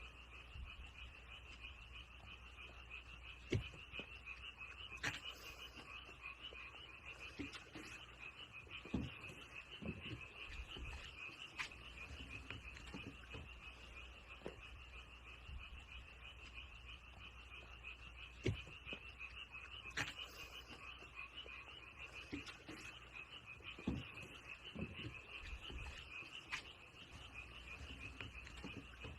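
Frogs calling in a continuous high-pitched pulsing trill, with a few faint clicks and soft thumps scattered through it.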